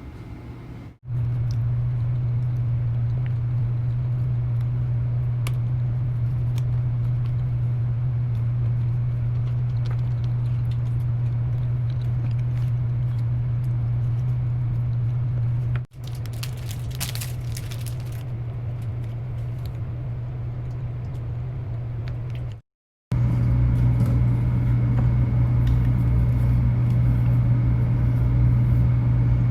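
Steady low hum that stops dead and resumes a few times, with a short burst of crackling and rustling about sixteen seconds in.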